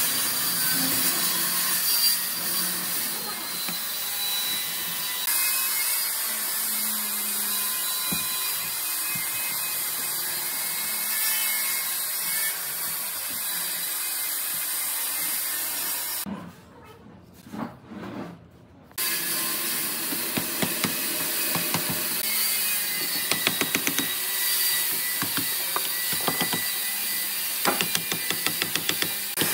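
Pine slats of a wooden lattice being handled and knocked together over a steady hiss, going briefly quiet about two-thirds of the way through. Near the end comes a rapid run of claw-hammer taps driving slats into the lattice.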